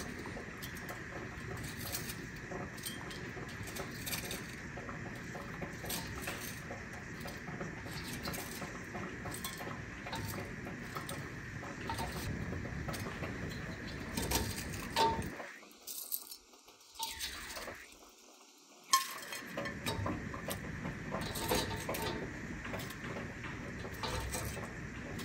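Metal tongs clinking and scraping against a stainless pan, wire rack and mesh strainer as fried tater tots are lifted out one after another, over a steady hiss. The sound cuts out twice, briefly, about two-thirds of the way through.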